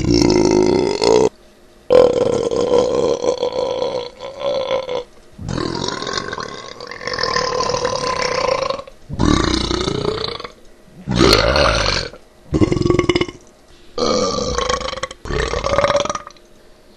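Deliberate, forced belching: a series of about seven long burps, each lasting one to three seconds, with short breaks between them.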